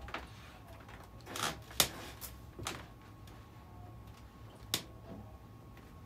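Sears Roebuck brass ceiling fan of the Emerson 1895 series running at slow speed, a faint steady hum with irregular sharp clicks and knocks, about six in all, the loudest a little under two seconds in. The fan runs out of balance and could not be balanced.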